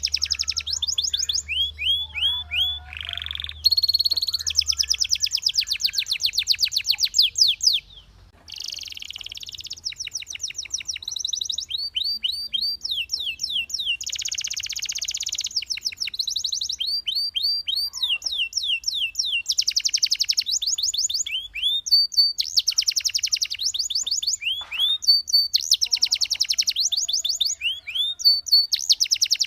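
Belgian canary singing: fast trills of rapidly repeated, down-slurred high notes in rolling phrases, with a brief pause about eight seconds in.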